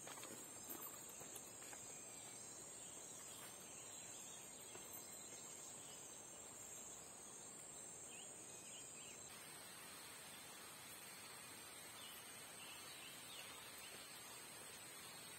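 Faint, steady high-pitched drone of forest insects, which changes in character about nine or ten seconds in. A few soft ticks in the first second or so.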